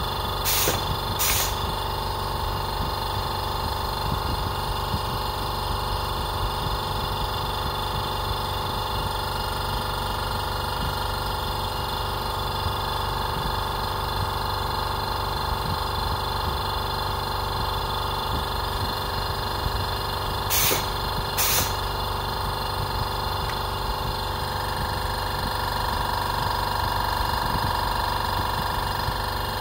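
Benchtop motorized leather-strap machine humming steadily, its electric motor giving a whine of several steady tones, stronger in the upper tone near the end. Two pairs of sharp clicks about half a second in and about twenty seconds in.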